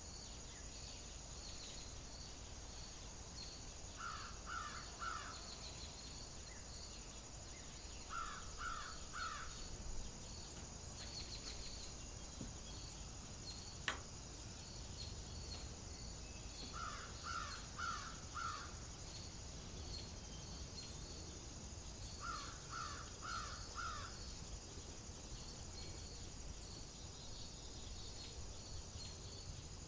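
Outdoor ambience of insects trilling steadily, with a bird giving harsh, caw-like calls in four bursts of three or four calls each. A single sharp tick sounds about halfway through.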